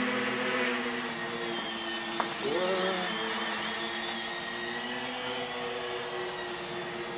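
RC tricopter's three propellers and motors droning in flight: a steady hum of several tones with a high whine above it. The pitch bends up briefly about two and a half seconds in.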